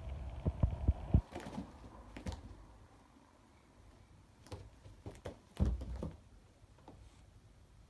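A cat's paws pouncing and landing on carpet: a quick run of soft thumps and taps in the first second or so, then another cluster about four and a half to six seconds in.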